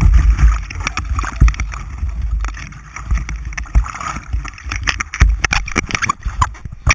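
Kayak moving through whitewater: rushing, gurgling water with frequent sharp splashes and knocks against the boat, heard through a camera mounted on the hull, with a heavy low rumble of water and wind buffeting the microphone.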